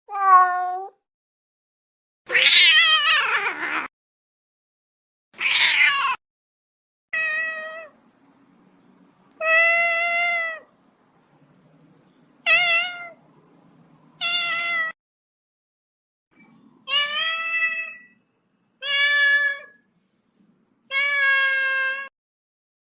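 Domestic cat meowing: about ten separate meows with short silences between them. The second, the longest at nearly two seconds, and the third are harsher and rougher than the clear, tonal meows that follow.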